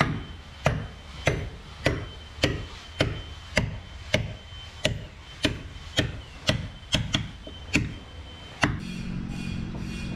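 Steady mallet blows on a caulking iron, about one every 0.6 s, driving caulking into a plank seam on the underside of a wooden boat hull. The blows stop near the end and a steady low hum with wind takes over.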